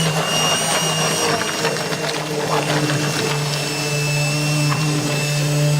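Electric mixer motor running steadily at speed while mixing pancake batter, a loud hum with a high whine over it.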